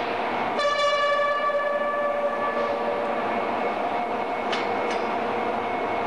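Steady din of a railway bogie-exchange shed. About half a second in, a horn sounds and fades away over about two seconds. Two sharp clicks follow near the end.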